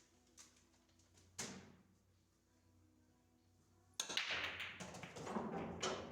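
Pool balls clacking on a pool table: a single sharp click about a second and a half in, then from about four seconds a louder clatter of several ball impacts running for about two seconds.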